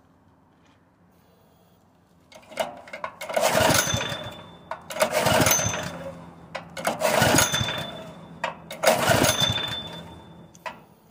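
Honda GX160 engine on a propane conversion being pull-started with its recoil starter, four pulls about two seconds apart after a quiet start, each one a sharp crank that quickly fades as the engine fails to keep running.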